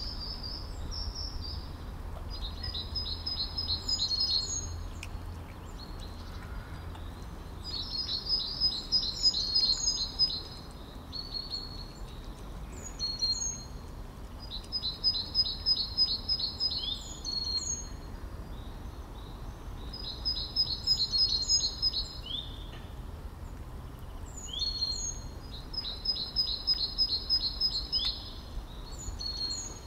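A songbird singing: short phrases of rapid, evenly repeated high notes, each ending in a few quick upward chirps, about every five to six seconds, over a steady low background hum.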